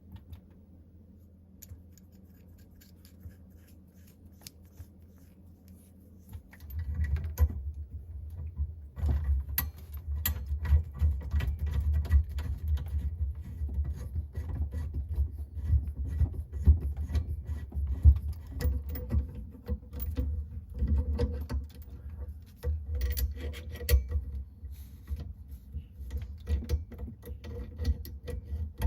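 Plastic water-filter tubing and quick-connect fittings being handled by hand: quiet at first, then from about seven seconds in a run of irregular clicks, taps and rubbing over a low rumble.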